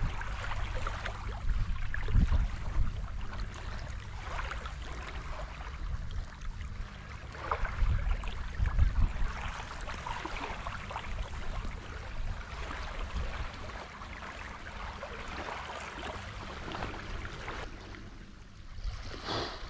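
Shallow seawater sloshing and lapping at the shore, with a few stronger low rumbles about two and eight seconds in.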